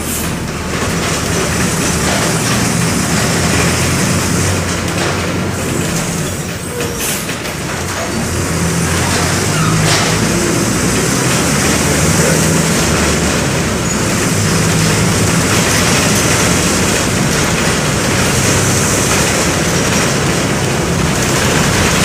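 Mercedes-Benz OM-924 LA four-cylinder inline turbodiesel (218 hp) of an OF-1722M bus running on the move, heard from inside the bus, with road and body noise over the engine. The engine note eases off briefly about six to eight seconds in, then builds again.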